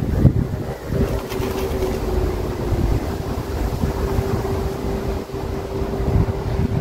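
Wind buffeting the microphone with a gusty low rumble, over a steady mechanical hum.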